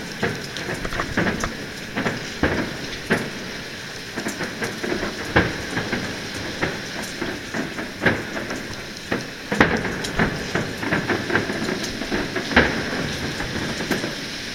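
Fireworks bursting overhead: a dense run of crackling pops, with a louder bang every few seconds.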